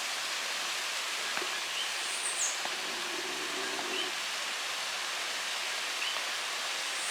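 Waterfall rushing with a steady, even hiss of falling water. A bird chirps briefly, high-pitched, a couple of times.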